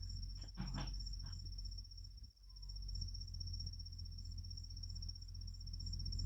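An insect trilling steadily at a high pitch over a low rumble, with a few soft taps about a second in.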